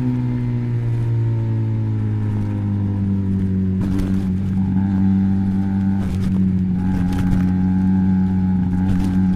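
Benelli BN302's 300 cc parallel-twin engine running through an Arrow exhaust with the dB killer fitted; the engine note falls in pitch over the first few seconds as the revs drop, then holds steady.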